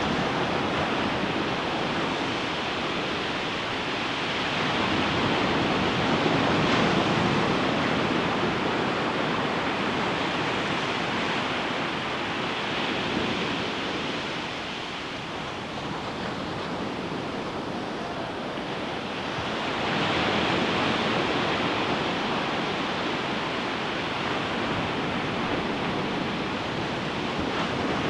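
Ocean waves breaking on a sandy beach: a continuous wash of surf that swells louder about 6 seconds in and again about 20 seconds in.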